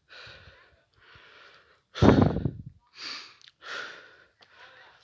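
A person breathing hard while hiking uphill, panting with a breath about every second; one much louder exhale comes about two seconds in.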